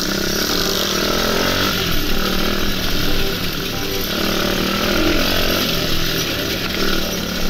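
Dirt bike engine running under way, its buzzing note shifting up and down with the throttle.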